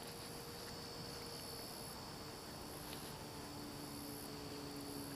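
Insects chirring steadily in summer grass, with a higher insect buzz that comes and goes in long stretches. A faint low steady drone sits underneath and grows a little stronger about three seconds in.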